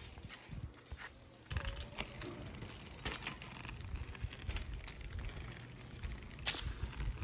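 Small children's bicycle rolling over concrete: a low tyre rumble with scattered clicks and light rattles.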